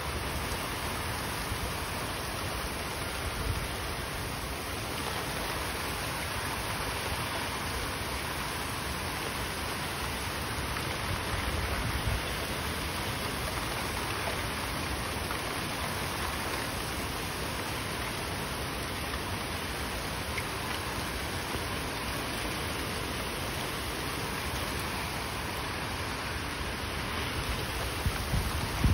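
Heavy rain pouring in a steady hiss, driven by strong wind, with gusts rumbling on the microphone now and then, around the middle and near the end.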